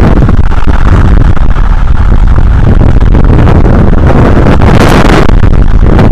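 Hurricane wind buffeting an outdoor nest camera's microphone with driving rain: a loud, steady rumble, with a stronger gust and rush of hiss about five seconds in.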